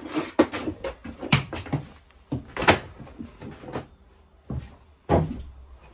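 Irregular knocks, clatters and rustling from a thick twin cable being pulled through and handled against the wooden panels and fittings of a boat cabin, the loudest knock a little under three seconds in.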